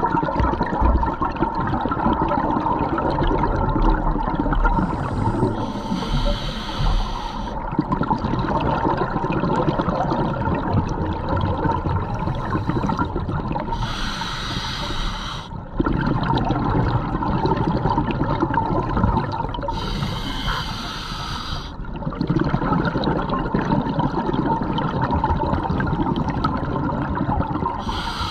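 Scuba diver breathing through a regulator underwater: short hissing inhales about every seven seconds, with long bubbling exhales in between.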